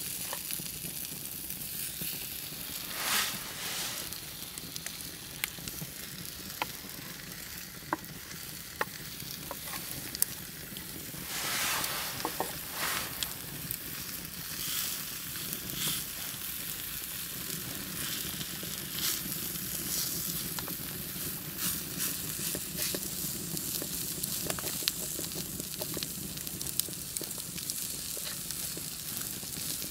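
Crumbled white cheese sizzling in a hot pan as it is stirred and scraped with a wooden spoon, over a steady frying hiss. Scattered sharp clicks from the wood fire crackling.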